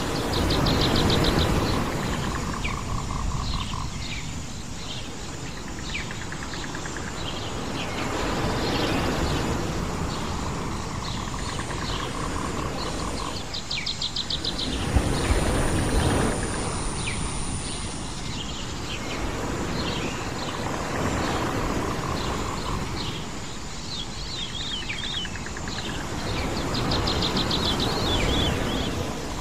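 Island nature soundscape: surf washing in slow swells that rise and fall about every six to seven seconds, with birds chirping throughout and short, rapid trills repeating every several seconds.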